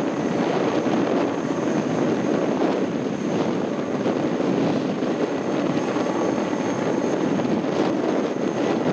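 Boeing 747-400 freighter's four jet engines running as the jet moves along the ground: a steady, loud rumble with a thin high whine over it.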